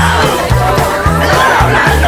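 Background music with a pulsing, rhythmic bass line and voices over it.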